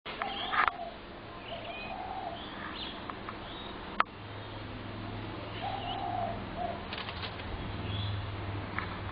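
Spotted doves giving short low coos amid bursts of wing flapping, with other small birds chirping higher up. A single sharp click about four seconds in.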